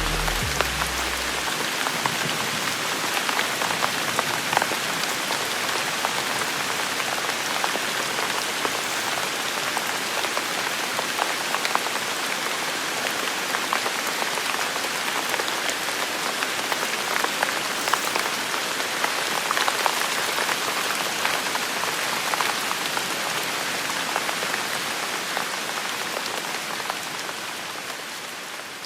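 Steady rain falling, a dense patter of drops at an even level that fades out near the end.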